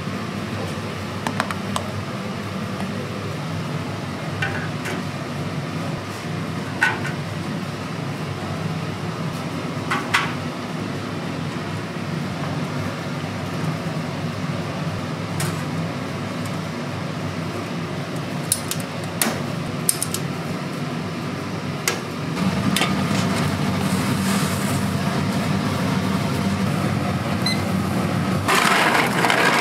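Ramen-shop kitchen working sounds: a steady low hum of equipment with scattered light clinks and knocks of utensils and dishes. The hum grows louder about two-thirds of the way in, and a rougher rustling noise builds near the end.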